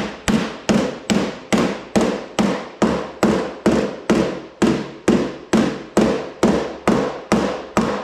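Hammer tapping steadily on the sheet-steel lip of a Camaro door patch panel, folding the flange over, about two and a half strikes a second. Each blow is a sharp metallic hit with a brief ring from the steel.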